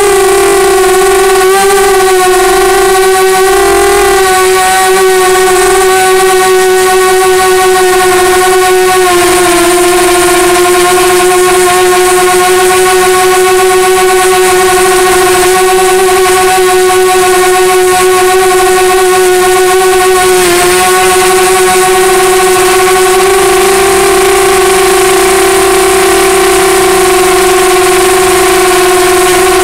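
Lumenier QAV250 racing quadcopter's four brushless motors (Multistar 2204-2300KV) and 5-inch props whining at a steady pitch in flight, heard loud from the craft itself. The pitch dips briefly about nine seconds in and again about twenty seconds in.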